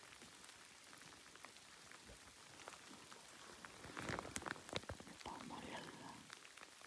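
Faint crackling patter, like light rain, with a cluster of louder crackles about four seconds in.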